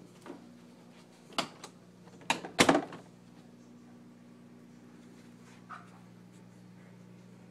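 A handful of sharp knocks and clacks from hard objects. A few come singly, a louder cluster comes about two and a half seconds in, and a faint one near the end, all over a low steady hum.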